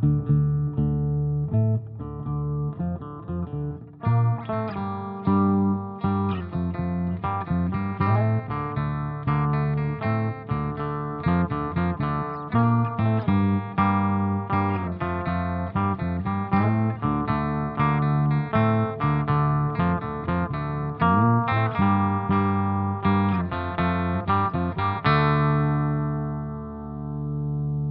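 Instrumental guitar music from a home-produced song demo: a steady run of plucked notes over a low bass line, sparser for the first few seconds. About 25 seconds in, a final chord rings on and its brightness slowly fades.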